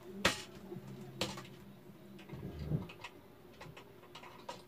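Sharp plastic clicks and small knocks from a phone holder being fitted and adjusted on a ring light stand, the two loudest in the first second or so, then fainter ticks.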